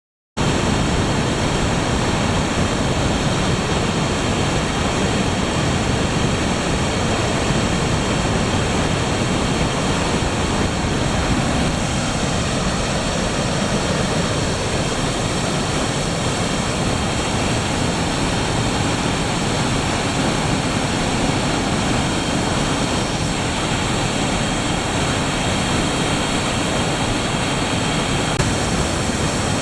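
Steady, loud rush of a hydroelectric dam's spillway releasing a large flood discharge after heavy rain, with a deep rumble underneath. It cuts in suddenly just after the start and holds level throughout.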